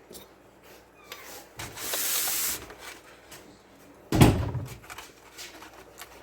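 Kitchen handling sounds: a scraping rub lasting about a second, two seconds in, then one sharp knock about four seconds in.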